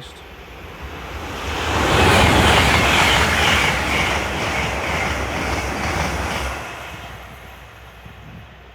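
LNER Azuma high-speed train passing through the station: a rush of wheel and air noise that builds over about a second, holds for about four seconds, then dies away.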